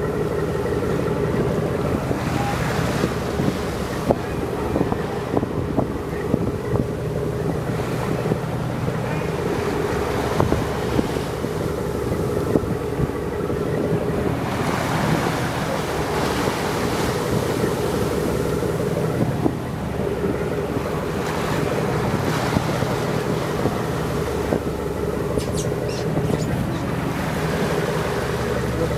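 Boat engine droning steadily under way, with water rushing past the hull and wind on the microphone, the rush swelling every few seconds.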